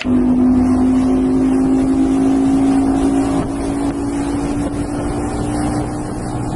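Bass boat's outboard motor running under way: a steady engine drone that rises slightly in pitch, over the rush of the hull through the water.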